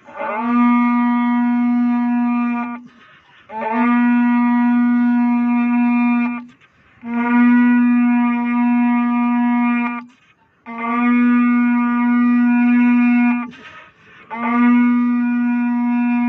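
A shofar blown in five long, steady blasts on one pitch, each about three seconds, with a short upward scoop at its start and a brief breath gap between blasts.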